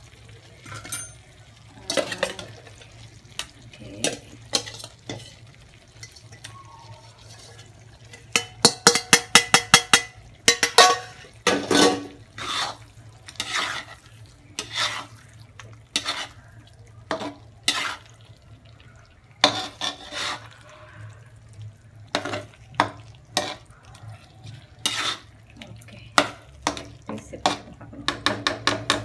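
Spatula stirring fish steaks in thick masala gravy in a non-stick kadai: irregular scrapes and sharp knocks of the spatula against the pan, with a quick run of loud taps about a third of the way in, over a low steady hum.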